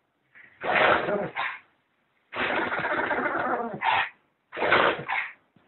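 A dog sneezing three times in quick succession, the middle sneeze drawn out for well over a second.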